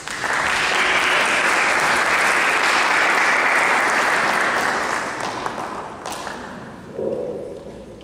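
Audience applauding, starting suddenly and dying away after about five or six seconds.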